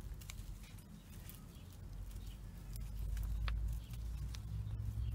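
Paper pages of a thick printed catalog being handled and turned: faint rustles and small clicks over a low rumble.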